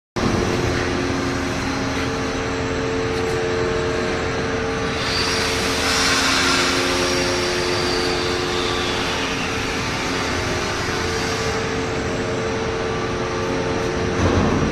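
Workshop machinery running steadily, a hum of several steady tones over a noisy rush, with a louder hiss swelling up about five to seven seconds in.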